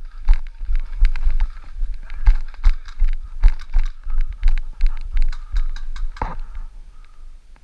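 Running footsteps of an airsoft player, heavy thumps about two to three a second with clicks and rattles of gear, stopping about six seconds in.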